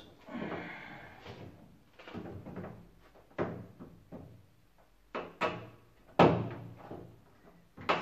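Knocks and clatter of plastic and metal as an Indesit washing machine's control panel is handled and screwed down with a screwdriver: about five sharp knocks over soft rustling, the loudest about six seconds in.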